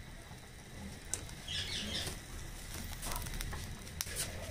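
Oil crackling faintly in a hot nonstick pan over small seeds, with scattered small pops and ticks.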